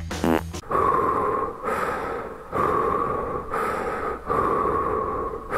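A woman laughing breathlessly, in wheezing, gasping breaths of about a second each, one after another with short breaks between them.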